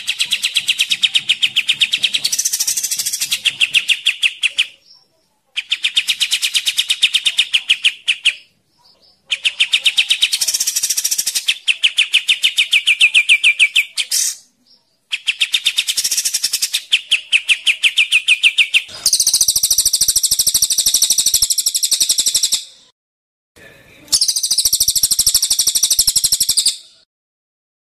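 Caged songbird recording of a cililin (crested jay) and a kapas tembak (sooty-headed bulbul): repeated bursts of very fast rattling trills, each a few seconds long with short gaps between. The last two bursts, from about two-thirds of the way in, are harsher and higher-pitched.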